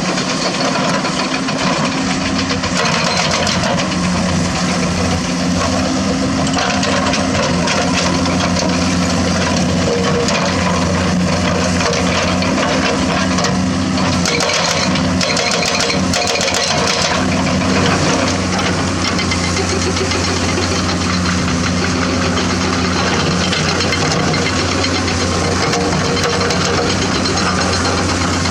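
Hydraulic excavator's diesel engine running steadily, with scraping and clattering as it works. The clatter comes in busier stretches early on and about halfway through.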